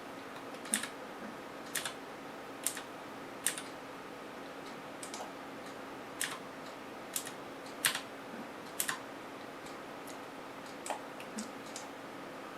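Computer clicks: about a dozen sharp single clicks, some in quick pairs, coming irregularly about once a second over a faint steady hum.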